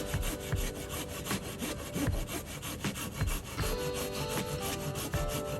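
Silky handsaw making the back cut through a standing blue beech (ironwood, American hornbeam) trunk to fell it: fast, even rasping strokes.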